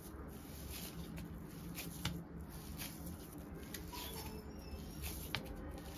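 Hands kneading crumbly fresh paneer on a steel plate: soft squishing and rubbing, with a sharp click against the plate about two seconds in and another near the end.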